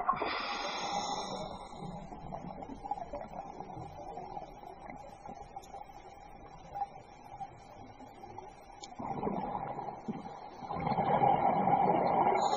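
Scuba diver breathing through a regulator, heard underwater: a hissing inhale at the start, a quieter stretch, then exhaled bubbles gurgling through the last few seconds, with the next inhale starting right at the end.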